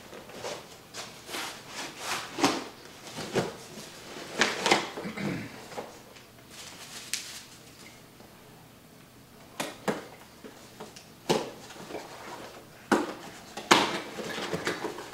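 A box of parts being unpacked by hand: a string of short rustles, taps and knocks from cardboard and plastic packaging, quieter for a few seconds in the middle.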